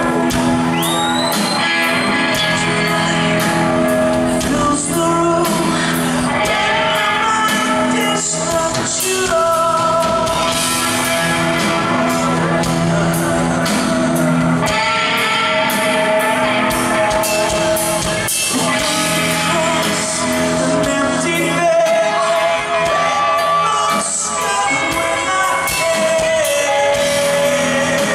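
Live rock band playing, with a singer's voice over drums, electric guitars and bass guitar.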